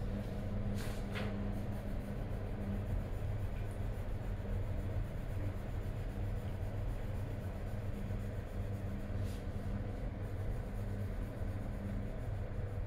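Coloured pencil shading on paper, a soft scratching of repeated strokes, over a steady low hum.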